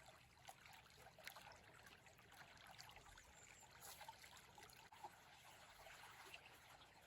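Faint stream water flowing and trickling over rocks, a steady babble with many small splashes.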